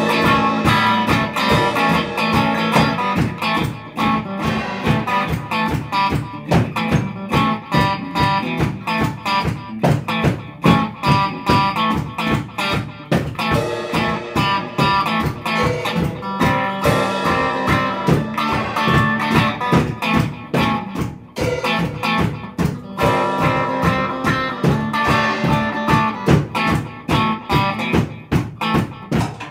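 A rock band playing a psychedelic instrumental: electric guitars over a drum kit keeping a steady beat.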